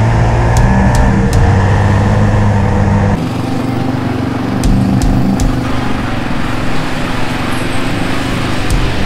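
Yamaha Raptor 700R ATV's single-cylinder engine running while riding. Its sound changes abruptly about three seconds in, with a few sharp ticks a little later.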